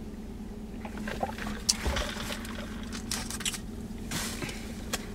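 Sipping a drink from a fountain cup and chewing, with short scattered mouth and handling noises, then a wrapper crinkling about four seconds in, over a steady low hum inside a car.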